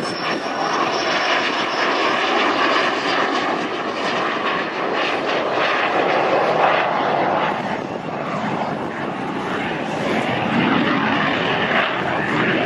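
Airplane engine noise from an aircraft in flight, loud and fairly steady with slow swells in level.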